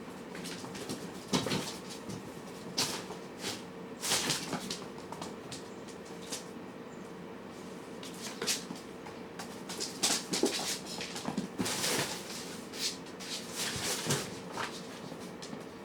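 Cats eating: irregular small crunches, clicks and scrapes, over a steady faint hum.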